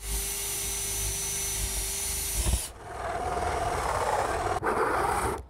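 Cordless drill running steadily as it bores a pilot hole through wooden wall boards. About two and a half seconds in it changes to a hole saw on a cordless drill cutting through wooden siding, a louder, rougher cutting sound that stops abruptly near the end.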